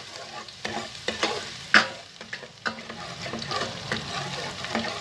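Garlic sizzling in hot oil in a pot while being stirred, with irregular sharp scrapes and clinks of the utensil against the pot, the loudest a little under two seconds in.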